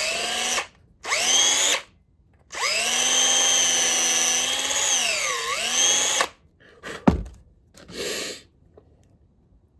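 Cordless DeWalt drill grinding out a hole in a 3D-printed plastic mount. It runs in two short bursts, each spinning up in pitch, then a run of about four seconds whose pitch dips briefly near its end. A sharp knock follows, then one more short burst.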